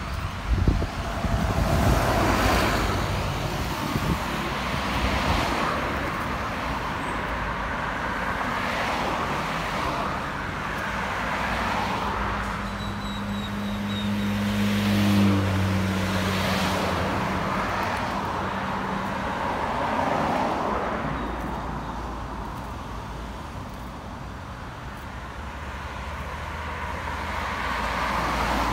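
Road traffic: cars passing one after another, swelling and fading every few seconds. An engine hum holds steady for several seconds in the middle, and a few low thumps come about a second in.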